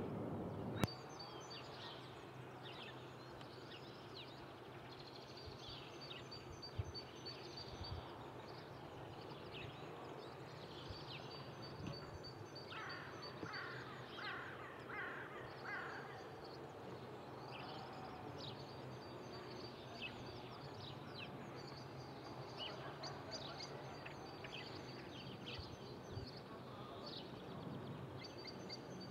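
Outdoor birdsong: many small birds chirping and trilling. A quick run of repeated calls comes near the middle, over a faint steady background hush.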